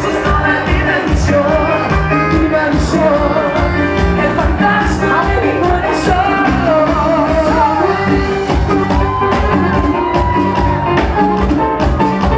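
Live Latin pop band music with a steady beat and a singer's voice over it.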